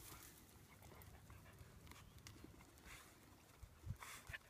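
Near silence, with faint scattered ticks and soft steps of dogs moving about on bare dirt, and a brief rustling burst near the end.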